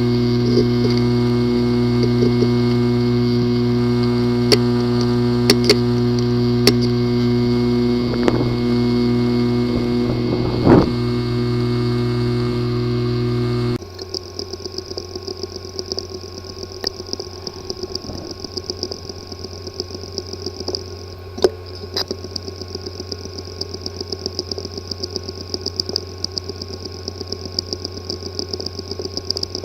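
Western Digital 2.5-inch USB portable hard drive with a physically damaged disk assembly running: a loud steady buzz with a few sharp clicks. About 14 s in it changes abruptly to a quieter whir with a high thin whine and frequent small ticks. These are the clicking and buzzing symptoms of a damaged head and platter assembly.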